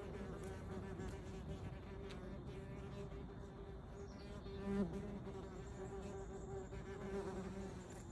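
Wasp wings buzzing in a steady low hum that holds one pitch, with a brief louder swell about five seconds in.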